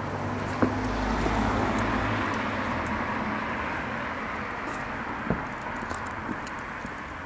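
A car driving past on the street: engine rumble and tyre noise peak about a second in, then slowly fade away. A sharp click comes just after the start and another about five seconds in.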